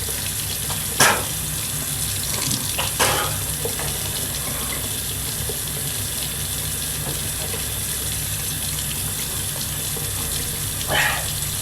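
Steady rush of water running from a tap, with a few brief noises over it.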